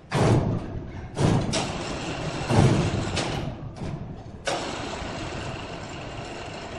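Sawmill machinery noise while a heavy hardwood slab hangs from a hoist over a log: three sudden heavy rumbling thuds in the first three seconds, then a steady machine run from about halfway.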